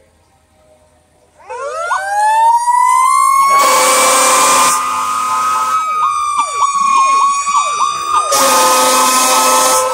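Fire engine siren winding up about a second and a half in, rising to a steady high wail, with several quick falling chirps in the middle. Two long horn blasts sound over it, the second near the end.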